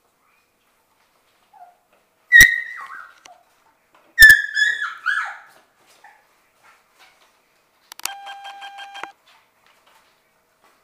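Six-week-old Sheltie puppy giving one sharp high yelp, then a quick string of about four high-pitched yips that fall in pitch. Near the end comes a brief buzzing tone that pulses rapidly for about a second.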